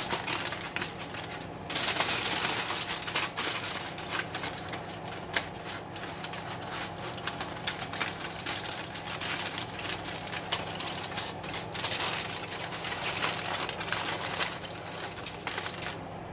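Aluminum foil crinkling and crackling as it is folded and crimped closed around a metal roasting pan, a continuous run of small crackles.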